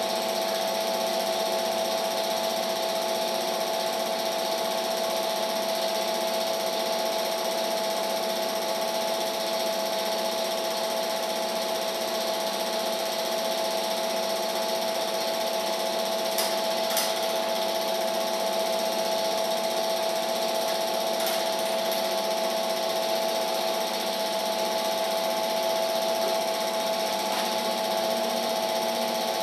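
Steady whirr and hum of a home-movie film projector running, with a couple of faint ticks about halfway through.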